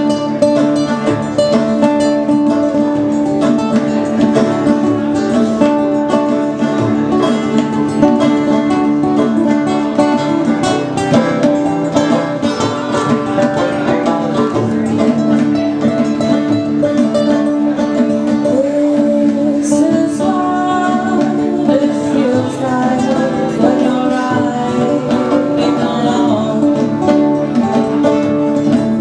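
Live acoustic music: a banjo and a classical guitar plucked together in a folk/bluegrass style, playing without a break.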